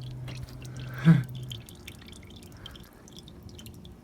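Warm used engine oil draining out of the oil pan into a drain pan, with faint scattered dripping and splattering. A steady low hum stops about a second and a half in, and a brief loud sound comes about a second in.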